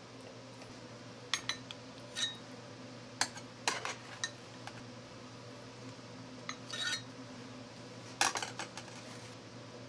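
Metal utensils clinking and scraping against a steel baking pan and ceramic baking dishes as lasagna is cut and portioned: about a dozen scattered sharp clinks, some ringing briefly, with a cluster near the end, over a steady low hum.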